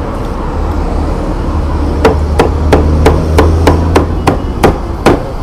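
A heavy cleaver chops roast dog meat on a thick round wooden chopping block. A quick run of about ten sharp chops, roughly three a second, starts about two seconds in.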